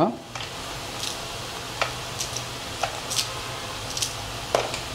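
Crisp deep-fried, batter-coated cauliflower fritters being broken apart by hand over paper towel: scattered light crackles and clicks, roughly one or two a second.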